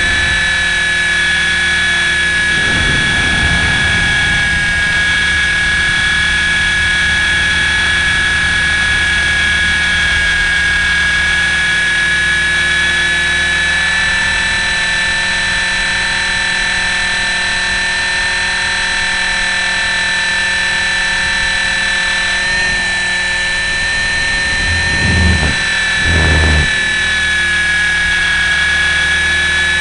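Electric motor and rotor of a KDS 450-class RC helicopter in flight, heard from on board: a steady high whine over a low rotor hum, with small shifts in pitch. Near the end come two short low bumps about a second apart.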